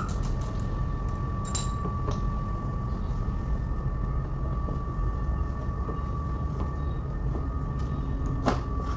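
Steady low machine rumble with a constant high whine running underneath, in a vehicle workshop, with a few sharp metallic clicks from work at the bus's front corner, one about a second and a half in and a louder one near the end.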